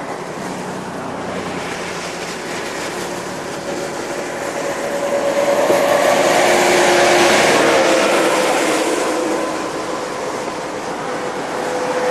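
Road traffic passing on the highway: a vehicle's tyre and engine noise swells to a peak around the middle, with a faint whine that drops slightly in pitch as it passes, then fades, and a second vehicle starts to approach near the end.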